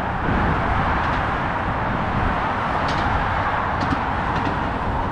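Steady roar of heavy motorway traffic rushing past, an unbroken wash of tyre and engine noise.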